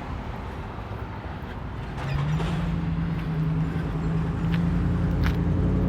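Low street rumble with a motor vehicle engine; about two seconds in, a steady engine hum comes in and grows a little louder.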